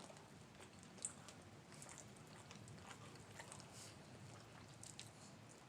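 Faint chewing of barbecued meat, with a few small mouth clicks and smacks, the sharpest about a second in.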